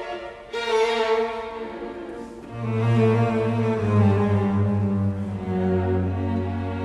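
Background music with slow bowed strings: a higher melody, then low cello and double-bass notes that enter about two and a half seconds in.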